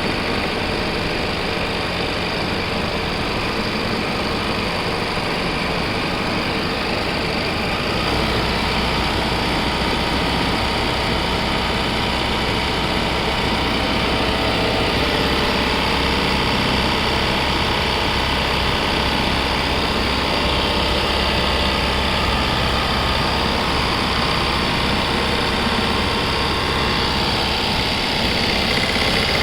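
Zoje ZJ-5770A-3020 computerized pattern sewing machine running, a steady mechanical whir with a low hum that comes in about eight seconds in.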